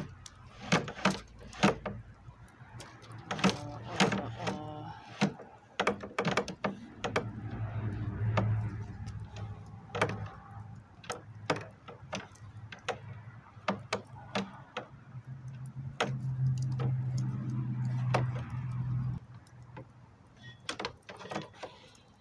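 A wooden drawer knocking and rattling on metal slide rails as it is pushed and pulled back and forth, jammed in its opening: many sharp knocks and clicks. A low hum comes in twice.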